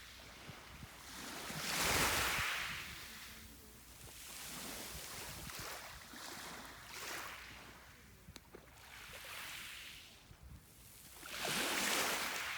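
Sea waves breaking and washing up on the shore, rising and falling in slow swells. The two largest come about two seconds in and near the end.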